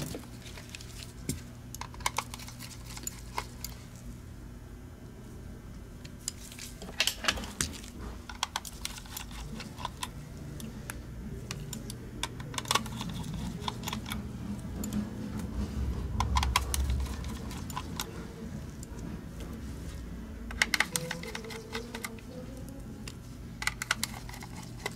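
Scattered small clicks and taps of hard plastic and metal as a Logitech G Pro Wireless mouse is handled and its base screws are undone with a small precision screwdriver, the tiny screws set down on a rubber mat.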